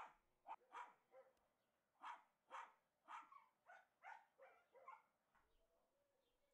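A dog barking in a run of short, sharp barks, about a dozen at uneven spacing, which stop about five seconds in.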